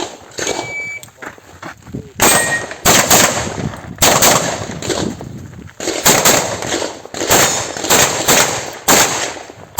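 A shot timer's short electronic start beep, then from about two seconds in a fast, irregular string of handgun shots fired by a competitor running a stage.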